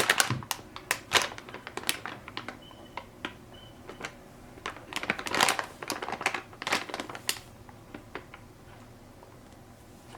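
Plastic packaging of a large squishy toy being handled and turned over: irregular crinkles and light clicks, with the busiest handling at the very start and again about five to seven seconds in.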